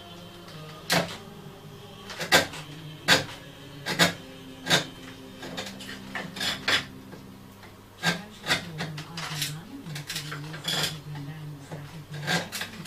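Small hand file rasping against the wooden frame of a music box in short, irregular strokes, with a dozen or more scrapes.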